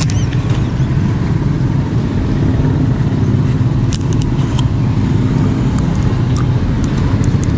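A nearby motor-vehicle engine running steadily at idle, a low even rumble, with a few light clicks of plastic being handled.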